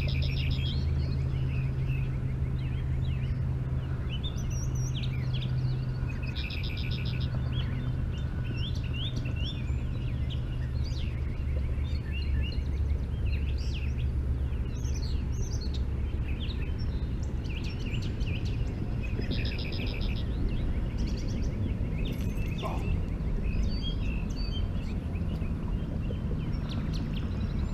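Songbirds chirping and calling throughout, with a rapid trill repeated a few times, over a steady low hum.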